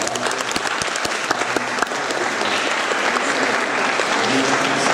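Assembly audience applauding. Separate claps at first thicken into dense, steady applause after about two seconds.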